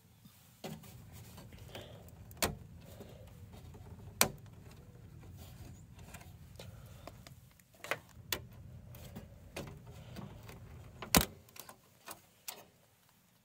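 A handful of sharp clicks and knocks as hands work cables and plastic parts inside a Dell desktop tower, the loudest about eleven seconds in, over a low steady rumble.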